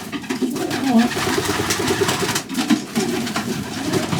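Young domestic pigeons cooing in a loft, many overlapping low calls.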